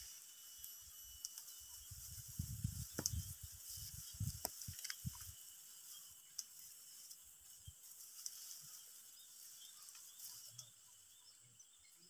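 Scissors snipping hill-rice stalks: a few sharp clicks with rustling of the stalks, busiest between about two and five seconds in, then only the odd click. A steady faint high hiss runs underneath.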